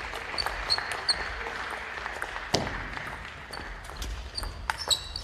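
Table tennis ball being played in a rally: quick sharp clicks of the plastic ball off the rackets and the table, several with a short high ping. There is a single heavier thud about two and a half seconds in, then another run of clicks near the end.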